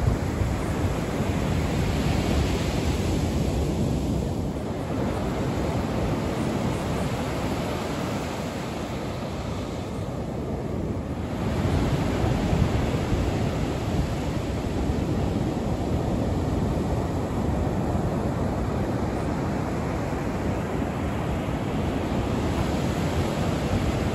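Ocean surf washing onto a beach: a steady rush of waves that surges louder near the start and again about twelve seconds in.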